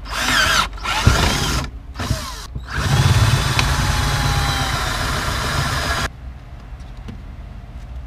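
Cordless drill boring holes in a plastic dash console panel. It runs in three short spurts with the motor pitch rising and falling, then runs steadily for about three and a half seconds with a larger twist bit before stopping suddenly about six seconds in.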